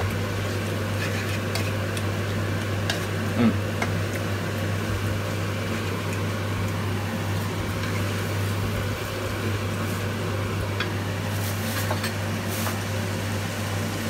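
Rice vermicelli being stir-fried in a non-stick pan: a wooden spatula tosses and scrapes the noodles, with a few short taps against the pan over a light sizzle. Under it runs a steady low hum.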